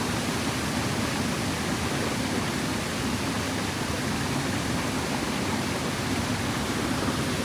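Small waterfall pouring into its plunge pool: a steady rush of falling water.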